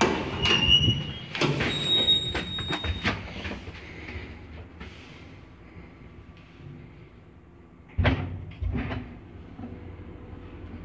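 Old Zremb passenger lift in operation. Its doors and mechanism clatter and knock for the first three seconds or so, with brief metallic ringing tones. A low steady hum follows, then two heavy clunks about eight seconds in, after which a steady hum with a faint tone carries on.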